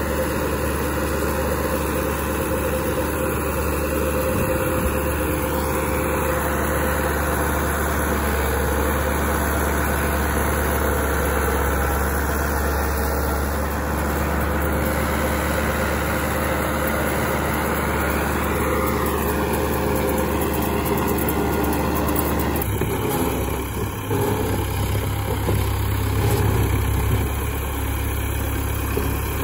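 Massey Ferguson 385 tractor's diesel engine running steadily while it drives a super seeder. About 23 seconds in the sound shifts abruptly, with a stronger deep hum.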